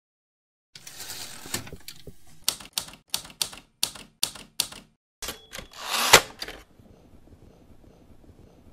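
Manual typewriter: a paper rustle, then about nine key strikes at roughly three a second. A swelling sweep follows and ends in a sharp clunk about six seconds in, like a carriage return.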